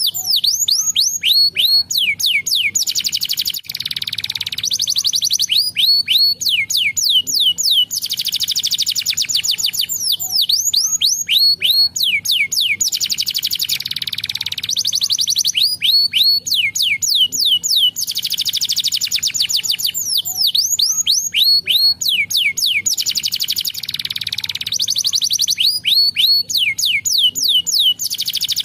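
Domestic canary singing a long, continuous song. Fast trills of repeated downward-sweeping notes alternate with short buzzy rattles.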